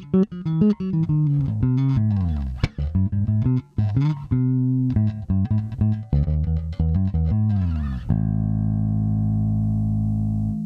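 Nordstrand Acinonyx short-scale electric bass with two single-coil pickups, played as a quick bass line of plucked notes with slides between them. About eight seconds in it settles on one long held note, which is cut off just before the end.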